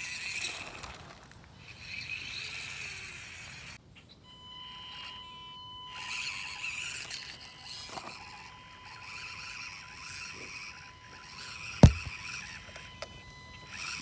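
Axial SCX24 1/24-scale RC crawler's small electric motor and gears whirring with a steady thin whine as it creeps through loose dirt. A single sharp knock about twelve seconds in is the loudest sound.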